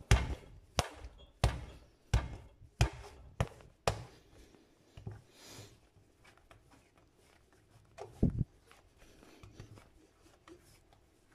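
Strudel dough being kneaded by hand on a floured worktop: a run of thumps about every two-thirds of a second for the first four seconds, then quieter pressing and rolling with a double thump a little past eight seconds.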